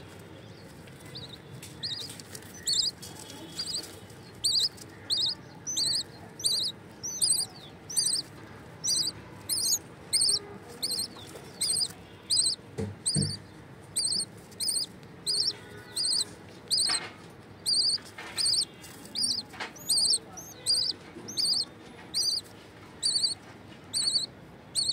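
Budgerigar nestlings giving high, evenly repeated begging cheeps, about one and a half a second, while a parent feeds them beak to beak. There is one dull knock about halfway through.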